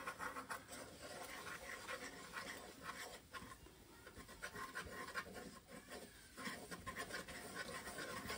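Butter-and-flour roux being stirred in a nonstick saucepan: a faint, irregular scraping and rubbing of the utensil against the pan base.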